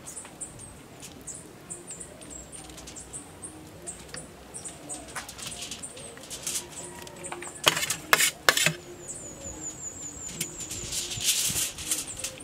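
Metal spoon and knife working stuffing into fish on aluminium foil: small scrapes and taps, three sharp clinks of the spoon against the pan about eight seconds in, and a crinkling rustle of the foil near the end. A faint steady high-pitched buzz runs underneath.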